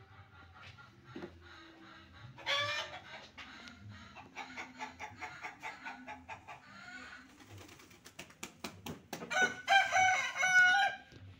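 Rooster crowing once near the end, the loudest sound, a long call that steps up and down in pitch. Before it come a shorter rising call and a run of short repeated clucking calls.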